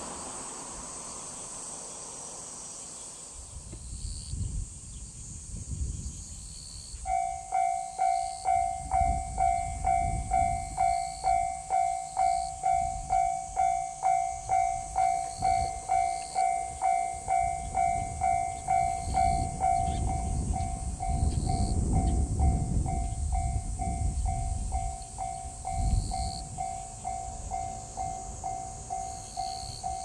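Japanese railway level-crossing warning bell starting about seven seconds in: an electronic ding repeated a little over twice a second, warning of an approaching train as the barriers come down. Underneath, a low rumble swells and fades, over a steady high hiss.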